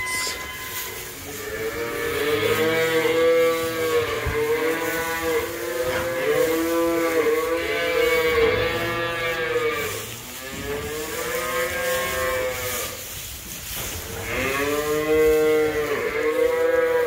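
Several beef cattle mooing over and over, the calls overlapping, each one rising and then falling in pitch, with a short lull about ten seconds in.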